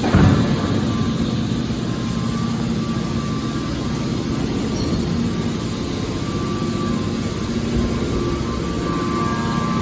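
Hydraulic scrap metal baler running, its power unit humming steadily, with one loud knock right at the start.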